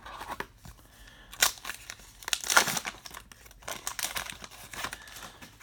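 Crinkling and tearing of a trading-card pack wrapper being handled and ripped open, in irregular rustles with the loudest stretch around the middle.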